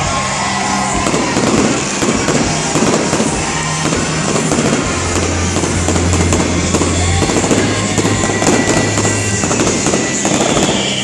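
Fireworks crackling and popping densely and without a break, as fountains shoot up streams of sparks, with music playing underneath.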